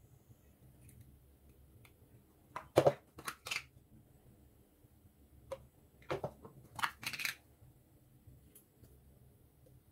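Scattered clicks and knocks of hard plastic as a blender jar and small plastic food containers are handled. The loudest knock comes about three seconds in, with a second cluster around six to seven seconds.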